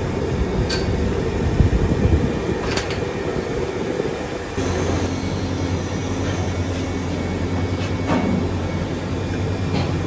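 Workshop machinery running steadily, with a few sharp metallic clicks; a steady low hum sets in about halfway through.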